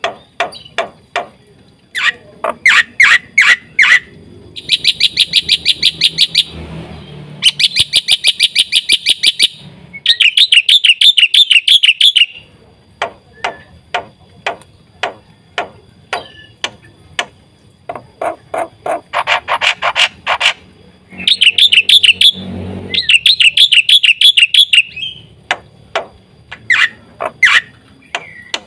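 Black-winged myna (jalak putih) singing loudly: sharp single calls alternate with fast, rattling runs of high repeated notes, each run about two seconds long, several times over.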